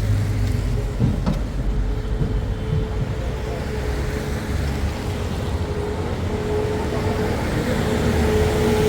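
A vehicle running steadily: a low rumble with a faint constant whine over it, and a couple of light knocks about a second in.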